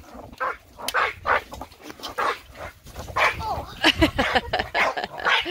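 British bulldog barking and yelping excitedly in a rapid string of short barks, coming thickest about four seconds in with a few whining, yelping tones.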